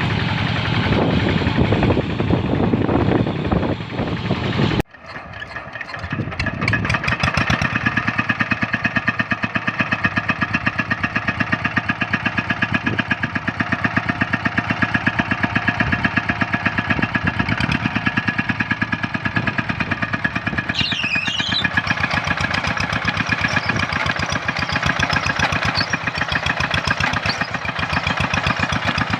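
Small diesel engine of a rice-field hand tractor running with a fast, even chugging. The sound breaks off abruptly about five seconds in, then the engine comes up again and settles into a steady run. A brief high squeak comes about two-thirds of the way through.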